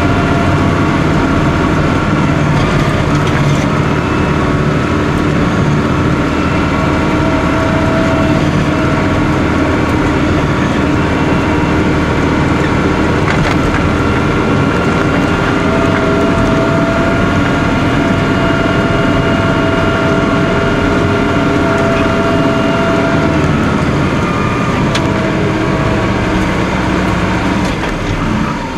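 Caterpillar IT28 wheel loader's diesel engine running steadily, heard from inside the cab while the machine pushes snow with its front plow, with a whine that comes and goes over the engine noise.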